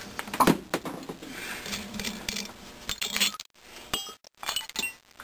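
Light metallic clinks and knocks of steel tools and engine parts being handled on the bench, with one louder clink about half a second in and scattered smaller ones after.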